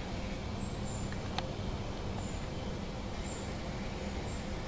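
Outdoor background: a steady low rumble with faint short high-pitched chirps about once a second and a single sharp click just over a second in.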